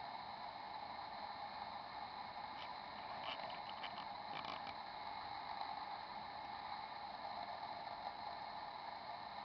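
Steady background hiss of indoor room tone, with a few faint short ticks about three to four and a half seconds in.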